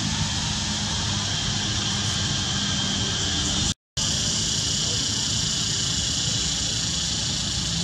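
Steady outdoor background noise: a continuous high hiss over a low hum, with no distinct events. It drops out completely for a split second just under four seconds in.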